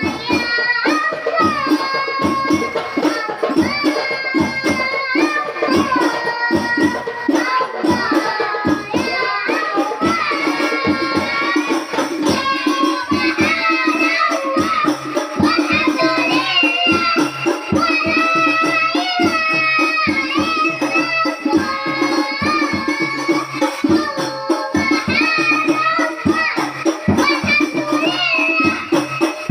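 Music: two high-pitched children's voices singing a duet over a fast, steady percussion beat with a jingling rattle.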